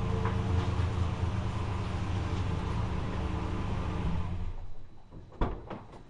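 Pickup truck engine idling steadily, then switched off about four and a half seconds in. A sharp knock follows about a second later.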